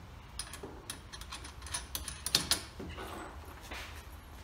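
Scattered light metallic clicks and taps as a bolt and nut are fitted by hand through the steel wheelbarrow arm into the axle brace, over a low steady hum.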